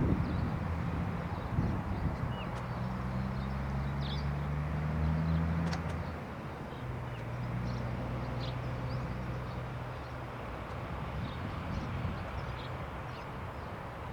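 A low engine hum with steady pitch, fading after about ten seconds, while small birds chirp throughout.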